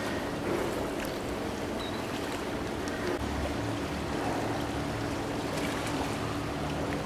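Pool water sloshing and lapping as a seal swims and turns at the surface, over a steady low hum.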